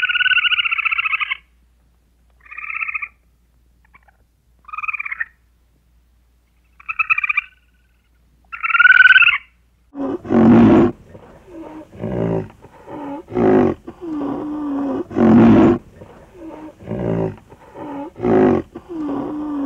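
A squirrel's rapid chattering calls: one long pulsed call, then four short ones about two seconds apart. About ten seconds in, a rhinoceros takes over with a run of low, louder grunting calls, about one a second.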